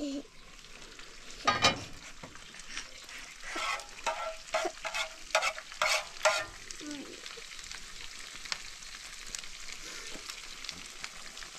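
Fish sizzling steadily as it fries in a pan, with sharp metal clatters against the pan as it is stirred, loudest about one and a half seconds in and several more a few seconds later.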